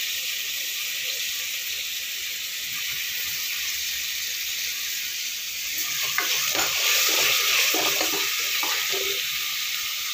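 Onions, green chillies and freshly added tomatoes sizzling steadily in ghee in a metal pot. From about six seconds in, a spatula stirs and scrapes through them for a few seconds, and the sizzling grows louder.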